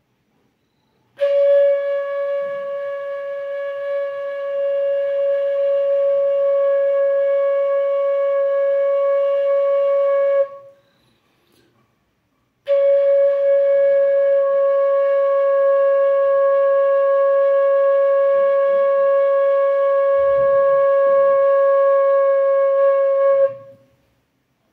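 Bansuri (bamboo flute) holding one long steady note for about nine seconds, then, after a short pause, the same note again for about eleven seconds: long-tone practice on a sargam note.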